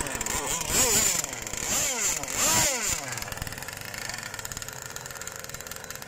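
Small engine of a model powerboat revved up and down in several quick blips, then settling to a steady, quieter running note about three seconds in.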